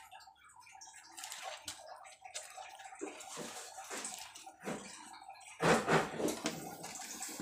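Water splashing and sloshing in a small glass betta container as dried Indian almond (ketapang) leaves are pushed in by hand, with a louder stretch of splashing and handling about five and a half seconds in.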